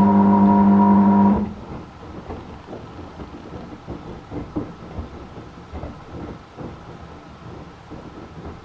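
Beko WYAW 714831 LS washing machine giving a loud, steady hum that cuts off suddenly about a second and a half in, leaving a quieter, irregular rumbling with soft knocks. The owner wonders whether the loud noise is the sign of a failing motor or pump.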